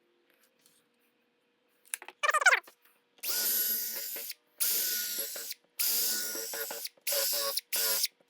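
Power drill with a countersink bit pre-drilling screw holes in a board, run in five short bursts: the first three about a second each, the last two shorter, with a whine in each run. A brief whir about two seconds in comes before them.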